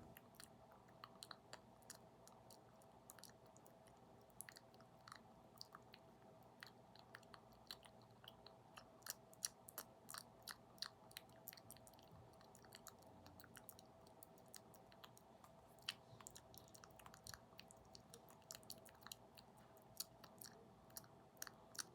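ASMR mouth sounds: small, irregular wet clicks and smacks close to the microphone, over a faint steady hum.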